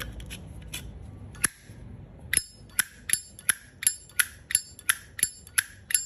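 A 1985 Zippo lighter's hinged lid being flicked open and snapped shut over and over. A couple of single clicks come first, then from about two seconds in a steady run of sharp metallic clacks, two to three a second. The clack is very loud, which the seller links to the thick case of older Zippos.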